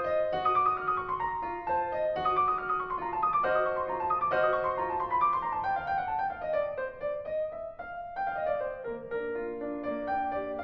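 Classical background music played on piano, with quick runs of falling notes repeated through the passage.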